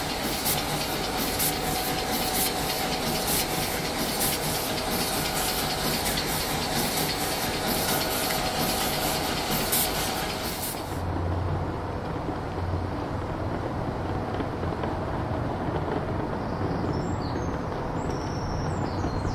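Diesel shunting locomotive engines running at idle: a steady hissing run with a faint thin whine, changing about eleven seconds in to a lower, deeper engine hum. A few short high chirps come near the end.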